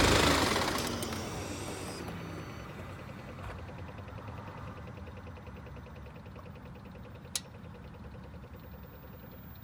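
BMW 328d four-cylinder diesel engine shutting off and running down over the first couple of seconds, leaving a low hum. About seven seconds in comes a single sharp click from under the car, which the owner says sounds like a relay or valve.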